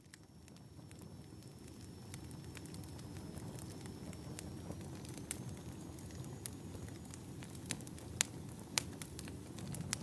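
Wood campfire burning: a steady low rush of flames, fading in over the first second or two, with scattered sharp crackles and pops from the burning logs, the loudest pops about eight to nine seconds in.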